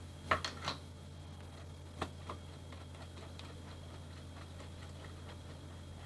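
A few light metallic clicks from a small tool working a bolt on a bicycle suspension fork's lower leg, mostly in the first two seconds or so, then faint scattered ticks over a steady low hum.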